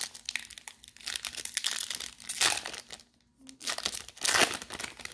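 Foil trading-card pack wrapper being torn open and crinkled by hand, a crackling rustle. It grows louder about two and a half seconds in and again past four seconds, with a short pause a little after three seconds.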